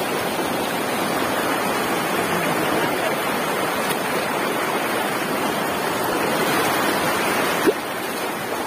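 Shallow river water rushing and splashing over rocks close to the microphone as feet wade through it. A single sharp knock near the end.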